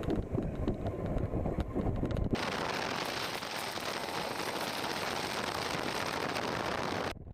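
Motorcycle engine running under way, a low pulsing rumble, for about two seconds. Then an abrupt switch to a steady rush of wind noise on the microphone while riding, which cuts off suddenly near the end.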